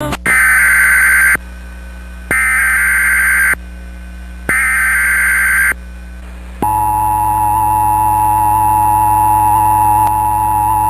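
Emergency Alert System opening: three bursts of the SAME digital header, each about a second of buzzy data tones with a second's gap between them. About six and a half seconds in, the steady two-tone EAS attention signal (853 and 960 Hz) begins and holds.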